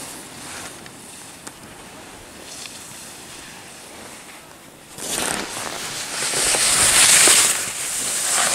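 Skis scraping and hissing over packed snow, starting suddenly about five seconds in and swelling in surges with each turn.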